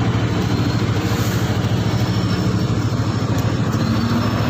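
An engine idling steadily, an even low throb that does not change.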